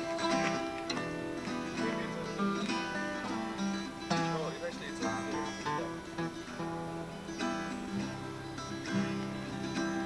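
Two acoustic guitars played together, strummed chords with picked notes.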